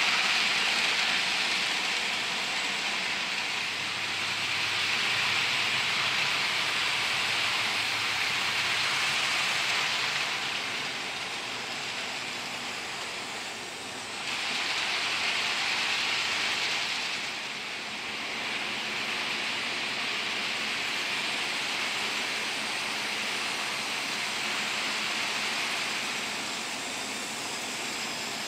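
HO scale model freight train, pulled by a Life-Like Chessie GP38, running on the layout's track. The plastic wheels make a steady, hissing rolling clatter on the rails, with the locomotive's motor underneath. It grows louder twice as the cars pass close by and eases off between.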